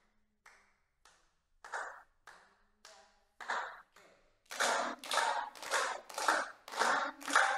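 A group of children and a teacher doing body percussion, clapping hands in rhythm. A few scattered claps at first, then from about four and a half seconds in a steady, louder clapping pattern at about two to three claps a second.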